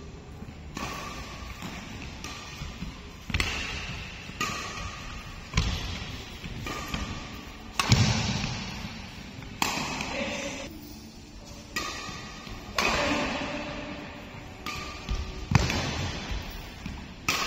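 Badminton rackets striking a shuttlecock back and forth in a rally, sharp hits about once a second, echoing in a large hall. Brief squeaky tones follow some of the hits.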